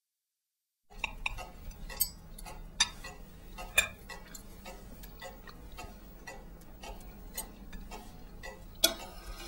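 Cuckoo clock ticking steadily, about two ticks a second, starting after a second of silence, with a faint low hum underneath.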